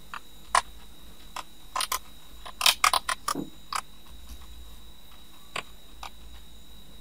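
Computer keyboard keys clicking as a word is typed: about fourteen quick, irregular keystrokes, most bunched in the middle, with a couple of spaced ones near the end.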